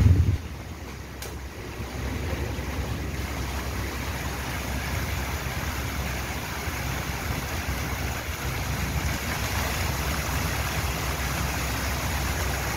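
Steady splashing of a fountain's rows of small water jets spraying up and falling back into a shallow tiled pool, with a low rumble underneath. A brief low bump right at the start.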